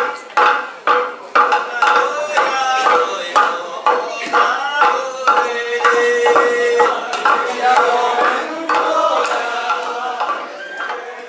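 Wooden pestles pounding rice in a wooden mortar, several strikers in turn, a quick even beat of about two to three knocks a second, sharpest in the first few seconds. Voices singing over the pounding from a few seconds in, with long held notes.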